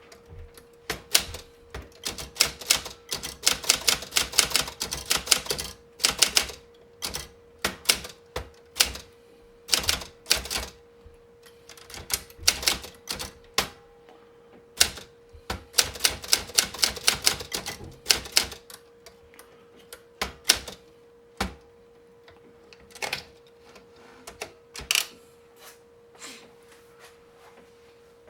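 Olympia Splendid 33 manual portable typewriter being typed on: fast runs of key strikes broken by short pauses, thinning to scattered single strokes near the end.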